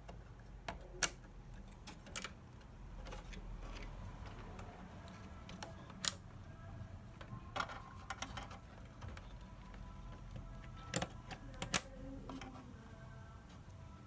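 Scattered sharp clicks and clacks of tools and hardware being handled on a workbench, loudest about a second in, at six seconds and twice around eleven to twelve seconds, over a low steady hum.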